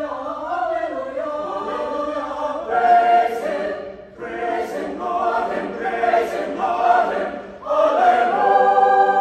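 Mixed choir singing in several parts, in phrases that swell and ease off, then opening onto a loud sustained chord near the end.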